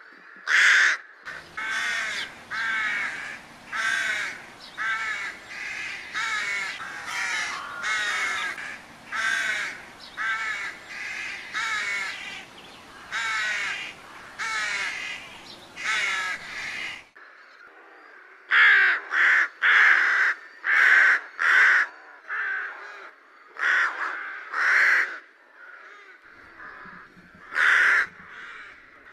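Rooks cawing: a long run of harsh caws, about one every three-quarters of a second, over a steady background noise. A little past halfway the background drops away, and louder caws follow in quick groups, then spaced out.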